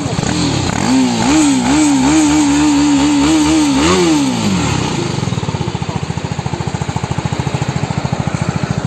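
BMW G 310 GS's single-cylinder engine revved through its exhaust, held at raised revs that waver up and down. About four seconds in the revs drop, and it settles into a steady, even idle.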